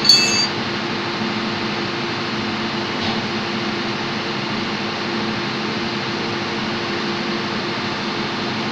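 Steady drone of engine-room machinery with a low hum. Right at the start, a short ringing clink of a metal tool striking metal.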